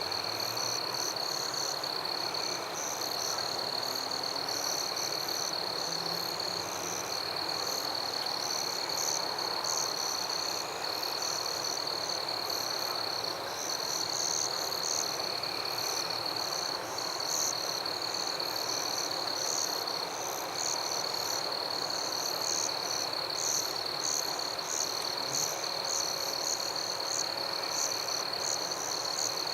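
Night chorus of frogs and insects: a steady high trill runs throughout, with rapid pulsing chirps above it and a softer call repeating about every two seconds.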